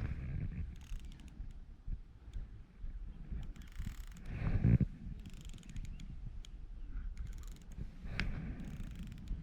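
Fishing reel clicking and whirring in several short spells while a large hooked fish is played on light line, with a louder low bump about halfway through.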